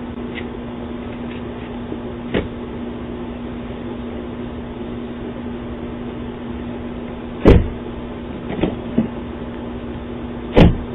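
A steady low hum and hiss, broken by five sharp thumps: one about two seconds in, a loud one about seven and a half seconds in, two lighter ones soon after, and another loud one near the end.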